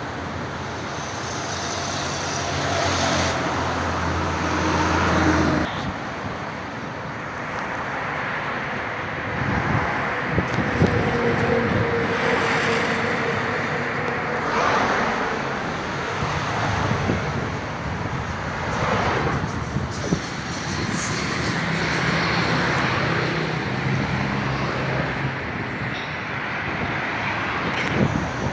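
Road traffic passing close by: cars and heavier vehicles going by one after another, the noise swelling and fading with each pass.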